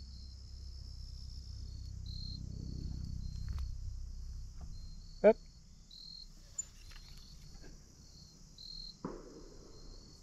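Crickets chirring steadily in a run of short high pulses. A brief squeak is heard about five seconds in, and a soft knock near nine seconds.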